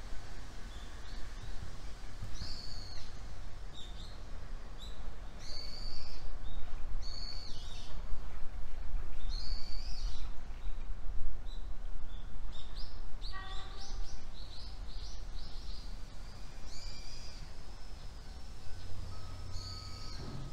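Birds calling repeatedly with short, high, slurred calls every second or two, with a quicker run of calls about two-thirds of the way through, over a steady low rumble.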